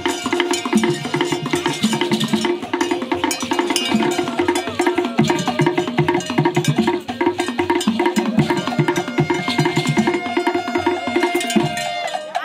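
Traditional Nigerian masquerade drumming: wooden slit drums and drums struck with sticks in a fast, repeating pattern. A higher held tone wavers above the beat.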